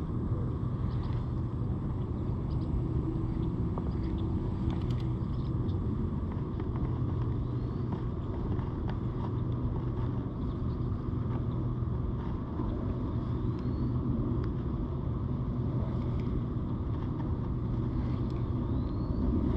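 A motor running steadily with a constant-pitched low hum.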